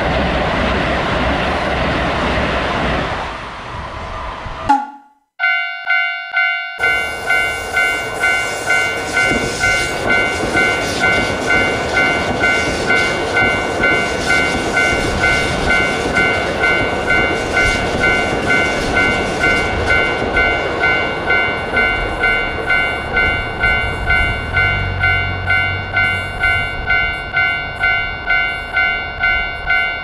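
An electric commuter train passes with a rushing rumble, then after a brief break a Japanese level-crossing warning bell rings steadily, about two rings a second, as another train rolls past.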